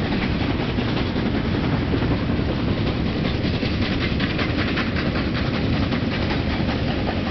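SY-class 2-8-2 steam locomotive working hard with a freight train: a rapid, even exhaust beat over the low rumble of the train, the beats most distinct midway.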